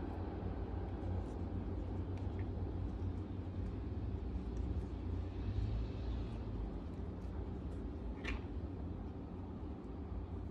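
Steady low background rumble, with one brief high rising chirp about eight seconds in.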